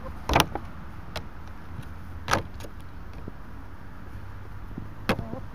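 A hen pecking at grapes in a clear plastic tub, her beak knocking on the plastic: three sharp taps, the loudest about a third of a second in, one more about two seconds in and one near the end, with a few fainter ticks over a steady low rumble.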